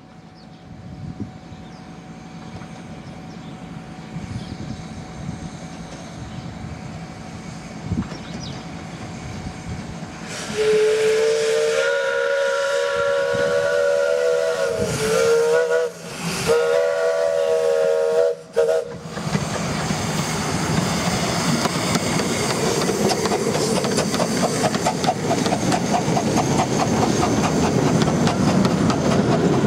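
Miniature-gauge steam locomotive approaching with a growing rumble, then sounding its steam whistle in long blasts for about eight seconds with two short breaks. After that the train passes close by: steady rolling wheel noise with quick beats of steam exhaust and clickety-clack from the carriages.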